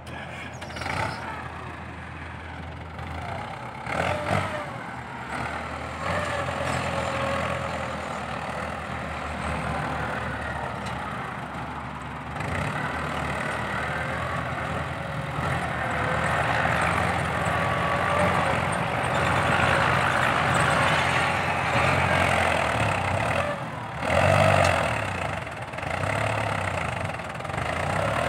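Ford 6640 tractor's diesel engine running steadily as it pulls a disc harrow through loose sandy fill, getting louder as the tractor comes closer in the second half, with a brief louder burst near the end.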